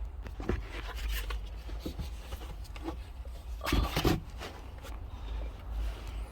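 Handling noises as a replacement seat belt and its bolts are worked with: scattered light clicks and rubbing, with a louder scraping rattle about four seconds in.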